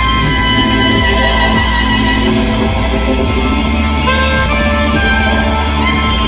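Live rock band playing, recorded on a phone: a soprano saxophone holds long melody notes over electric bass guitar, keyboard and a steady beat.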